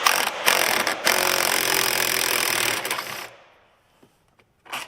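A handheld power tool running for about three seconds, then stopping.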